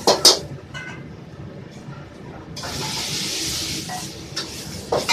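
Metal wok ladle clattering and scraping in a steel wok while stir-frying noodles over a gas burner, with a burst of hissing from about two and a half seconds in that lasts about a second and a half before the ladle strokes resume.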